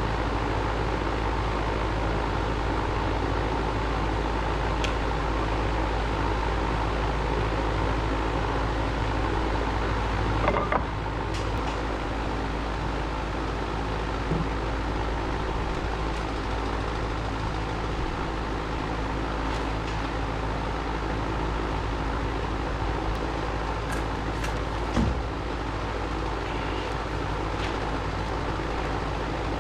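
An engine running steadily at a constant speed, with a few short knocks over it.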